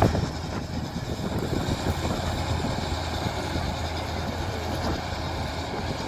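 Combine harvester running steadily while cutting and threshing wheat: an even engine hum under the noise of the machinery.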